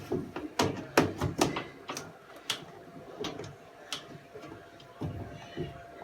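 Knocks and clatter from parts being worked loose on a washing machine that is being taken apart. There are several sharp strikes in the first two and a half seconds, then quieter handling.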